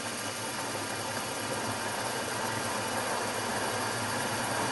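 Milling machine spindle running steadily with a low hum while a centre drill spots a starter hole in a metal toolholder blank.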